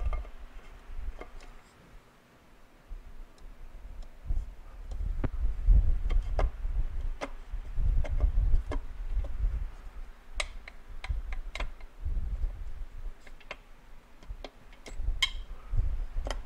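Light metallic clicks and taps at irregular intervals, with dull low bumps, from small engine parts and hardware being handled and set down while a cover is fitted loosely to a two-stroke engine case. The clicks cluster about two-thirds of the way through and again near the end.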